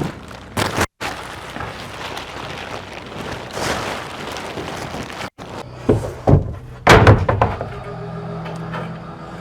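Thumps and knocks of plywood sheathing being handled and tacked down on a roof deck, the loudest few close together about six to seven seconds in, over steady wind noise on the microphone.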